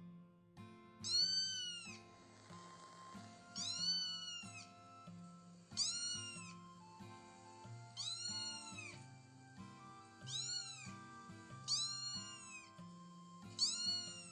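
A cat meowing, seven drawn-out meows about two seconds apart, each rising and falling in pitch, over gentle background music.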